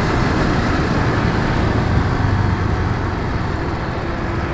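Motorcycle riding at road speed: wind rushing over the microphone with the engine running underneath, easing off a little toward the end as the bike slows.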